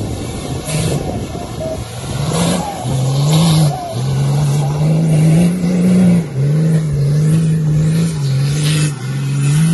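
Off-road 4x4 truck engine revving in repeated surges, its pitch climbing and then dropping back about four times as the driver works the throttle.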